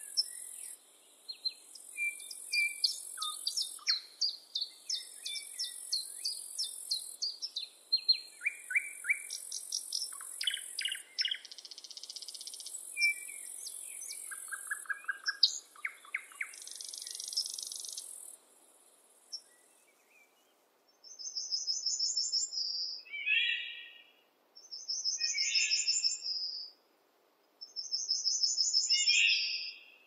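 Forest songbirds sing many short chirps and whistles over an insect's very high, pulsing buzz that comes in bursts of about a second. The buzz and chirping stop about twenty seconds in. Then a bird sings the same loud phrase, about two seconds long, three times.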